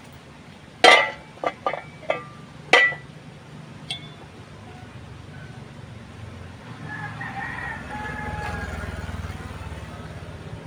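Galvanized iron stove parts clanking against each other as they are handled, about six sharp ringing metal knocks in the first four seconds, two of them much louder than the rest.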